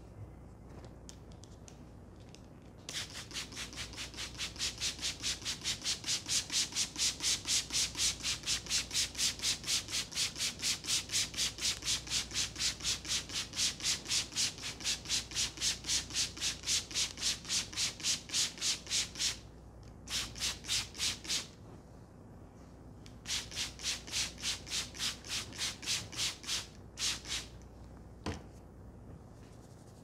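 Hand trigger spray bottle misting water onto hair in quick squirts, about three hisses a second: a long run, then two shorter runs.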